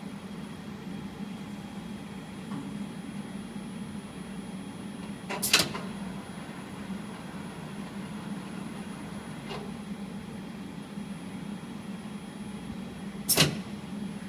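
Weiler DZ26 CNC lathe running with a steady hum. There are two loud, short knocks about five and thirteen seconds in, and a fainter one between them.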